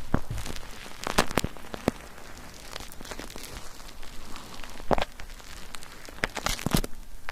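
Bar soap being worked into lather in a wet foaming net, making irregular wet squelches and crackling pops of bubbles, a few snaps louder than the rest.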